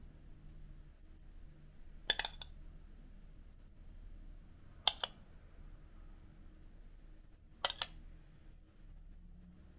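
Metal spoon clinking against a ceramic soup bowl as it is moved through the ash, a few sharp clinks spaced two to three seconds apart, some in quick pairs.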